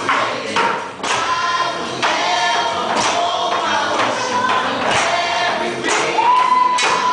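Choir singing over music, with a hard hit on the beat about once a second and a long held note near the end.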